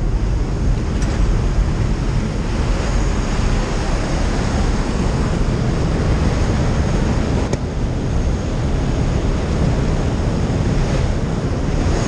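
Strong wind rushing and buffeting over the camera microphone during a skydive, a steady loud roar.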